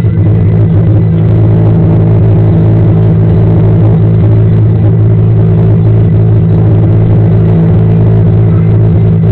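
Airliner's jet engines heard inside the passenger cabin during takeoff: a loud, steady drone with a deep hum, holding the same pitch throughout.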